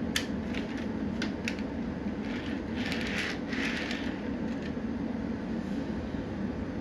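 Small sharp clicks and a couple of short rustles from an HO-scale model hopper car being handled on the track, over a steady low hum.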